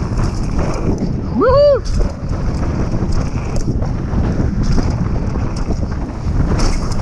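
Wind buffeting the microphone and tyre noise as a Scott Gambler downhill mountain bike runs fast down a dirt trail, with knocks over the bumps. About one and a half seconds in, the rider gives a short shout that rises and falls in pitch.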